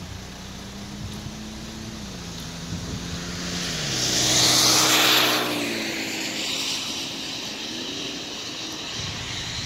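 A pickup truck driving past on the road. Its tyre noise swells to a peak about halfway through and then fades, while its engine hum drops in pitch as it goes by.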